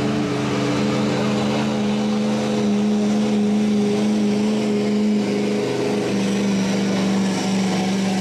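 Street diesel pickup truck's engine running hard under load on a pulling track, at a steady pitch that wavers slightly.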